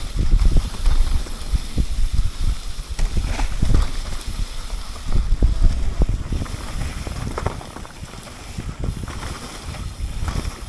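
Electric mountain bike riding down a wet, leaf-covered forest trail: a rough, uneven low rumble with frequent knocks and rattles as the bike goes over bumps.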